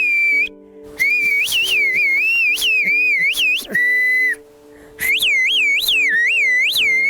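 Kuş dili, Turkish whistled language: a loud, piercing human whistle in quick phrases of rapidly rising and falling pitch glides, with two short breaks and one held level note near the middle.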